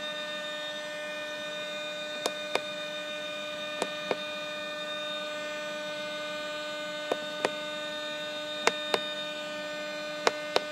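A steady electrical hum, broken by five pairs of sharp clicks about a third of a second apart, which fit the JetCat P80SE turbine's burner solenoid valve being clicked open and shut in the test function.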